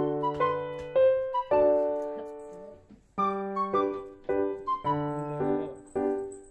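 Background piano music: a slow run of struck notes and chords that ring and fade, with a brief break about halfway through before the notes resume.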